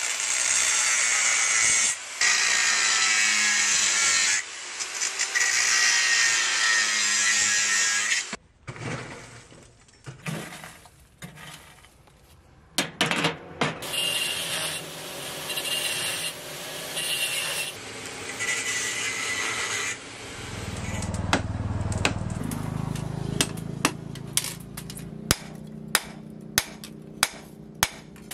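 Angle grinder with a thin disc grinding the edge of a curved steel blade, in long runs broken by brief pauses. Later comes a low rumble, and from about 24 s on a series of sharp hammer blows on steel at a steady rate.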